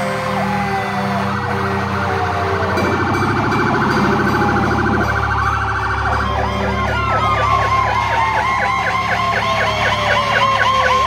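Several fire truck sirens sounding at once as the trucks pass. They shift from a fast warble to a rapid yelp, and one wail slides slowly down in pitch through the second half, over the low rumble of the truck engines.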